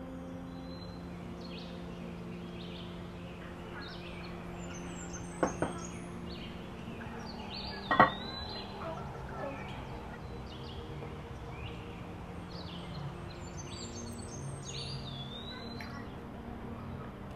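Small birds chirping and twittering over a steady low hum. A quick double knock comes about five and a half seconds in, and a louder single knock about eight seconds in.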